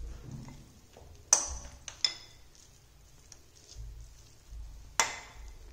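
Steel spoon clinking against a glass mixing bowl while scooping puffed-rice bhel out onto a paper plate: a few sharp, briefly ringing clinks, the loudest about a second and a half in and near the end, with quieter scraping between.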